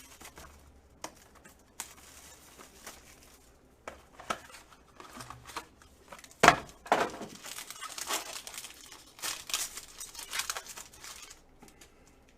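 A trading-card box and its pack being torn open and handled: tearing and crinkling wrapper with scattered sharp clicks, the loudest a snap about six and a half seconds in, and a stretch of rustling after it.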